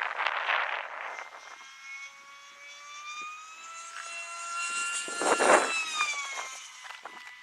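Great Planes Rifle 1M RC airplane making a fast fly-by at high throttle: a high motor whine that grows louder and rises in pitch, passes close with a rush of air about five seconds in, then drops in pitch as it flies away.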